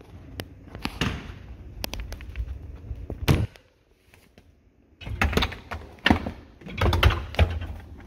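Dishwasher's wire bottom rack being rolled back into the tub, rattling and knocking against its rails. A louder knock comes a little over three seconds in, then a short pause, then a second run of clattering.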